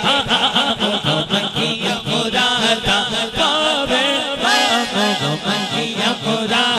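A man singing a Punjabi naat through a microphone and PA, over a chanted chorus with a steady beat.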